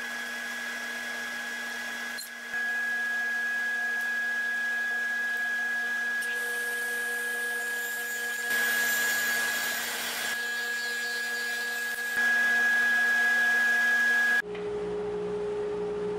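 Table saw running with a steady whine while box-joint fingers are cut in a walnut board. It gets louder for a couple of seconds around the middle and again near the end, then switches abruptly to a lower steady hum.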